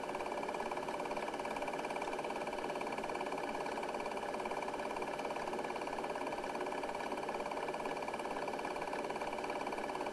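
Film projector running: a steady whir with a fast, even clatter.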